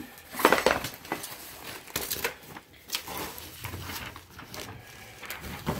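Cardboard box flaps and styrofoam packing being handled, with irregular rustling and scraping and a few light knocks.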